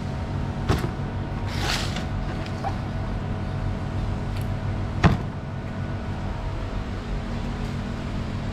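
Steady hum of workshop machinery, with a sharp click about a second in, a brief rustle just after, and a sharp knock about five seconds in.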